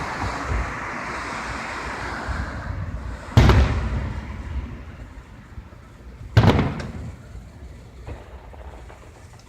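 Fireworks shells bursting: two loud booms about three seconds apart, each followed by a low rumble that fades. A rushing hiss carries over from an earlier burst and dies away in the first few seconds.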